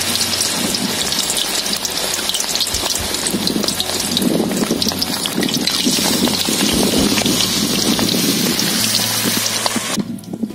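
Marinated chicken 65 pieces deep-frying in hot oil in a large aluminium pan: loud, steady sizzling with dense crackling as more wet-coated pieces are dropped in. The sizzling cuts off sharply near the end.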